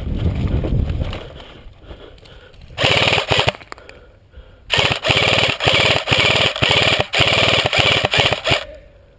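Airsoft electric gun firing on full auto as a rapid mechanical rattle: a short burst about three seconds in, then a longer run of bursts with brief breaks lasting about four seconds.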